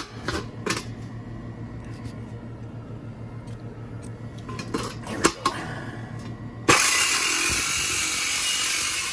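A few light metal knocks and clanks as a jigsaw is set against a metal container. About seven seconds in, the jigsaw starts suddenly and runs loud, its metal-cutting blade rattling against the thin sheet metal.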